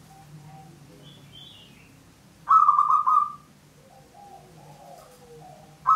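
Zebra dove (perkutut) cooing: a loud, rapid rolling phrase about two and a half seconds in lasting under a second, and another starting at the very end, with softer low notes in between.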